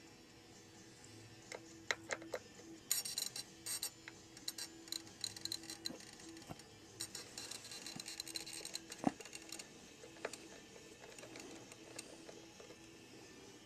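Small precision screwdriver working screws inside an opened hard drive: quick small metal clicks and scraping, a few single clicks about two seconds in, then a dense run from about three seconds in until nearly ten seconds, with scattered clicks after.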